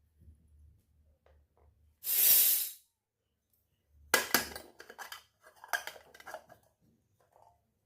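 Miniature toy kitchenware clinking and clattering as it is handled: a run of small clicks and knocks in the second half. About two seconds in there is a short, sharp hiss.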